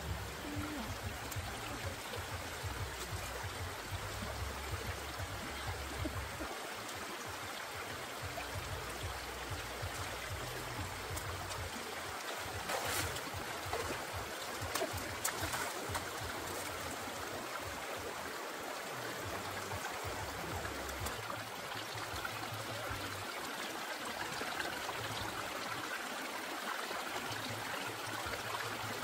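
Shallow stream running over rocks, a steady rush of water, with a few splashes near the middle as a foot sweeps through the water.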